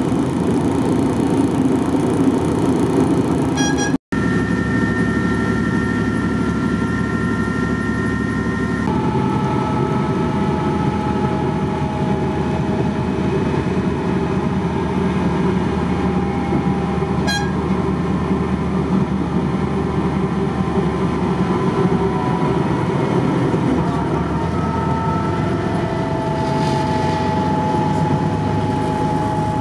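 Diesel railcar running along the line, heard from inside the passenger compartment: a steady low rumble of engine and wheels with whining tones from the drivetrain that change pitch a few times. There is a brief cut-out about four seconds in and a single click a little past halfway.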